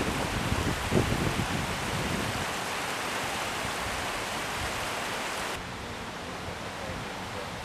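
Flooded creek rushing: the steady hiss of fast, high water. About five and a half seconds in it cuts to a quieter, duller background.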